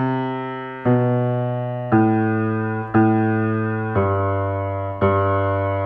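Piano playing a progression of slash chords, C, G/B, A minor, F/A, C/G, G, one chord about every second, each struck and left to ring. The bass steps down beneath the chords.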